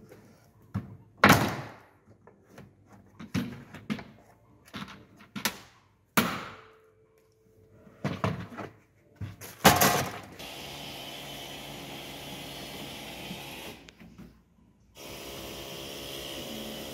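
Irregular knocks, clicks and a few loud thunks as the plastic trim and rubber weatherstrip around a car's tailgate opening are pulled, pressed and refitted by hand. From about ten seconds in these give way to a steady background hiss and hum.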